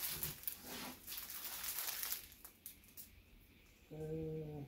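Plastic packaging crinkling as a bagged body pillow cover is handled, fading after about two seconds, then a short hummed "mm" from a man's voice near the end.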